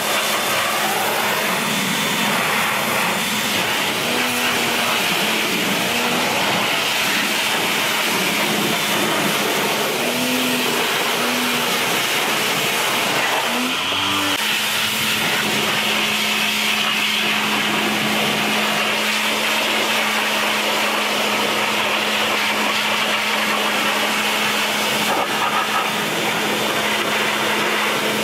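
Electric pressure washer running, its water jet hissing as it sprays into a car's engine bay. A steady low hum joins in about halfway through.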